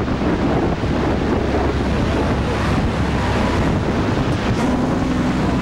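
Loud, steady rushing noise of wind buffeting the camcorder microphone.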